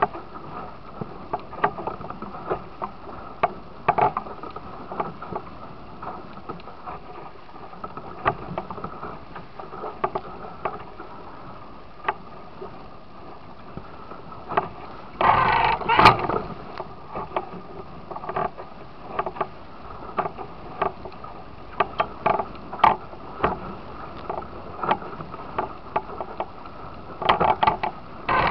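Musto Skiff sailing dinghy's hull slapping through choppy water, with a steady rush of water and wind. Irregular sharp slaps of waves against the hull, the loudest bout of splashing about halfway through and another cluster near the end.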